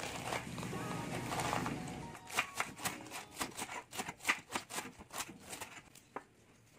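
Kitchen knife shredding a head of cabbage against a plastic cutting board: a quick run of crisp chopping cuts, about four a second, from about two seconds in, dying away near the end.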